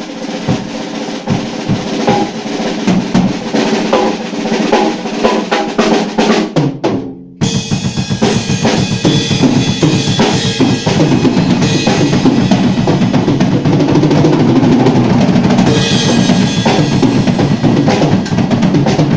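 Acoustic drum kit played solo. Busy drumming thins out and drops away about six seconds in, then comes back suddenly as fast, dense playing with cymbals washing over it, growing louder and staying loud to a climax.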